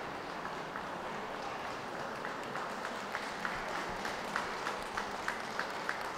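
Audience applause in a large show hall: a steady background of clapping, with sharp, evenly spaced handclaps about three a second standing out from about two seconds in.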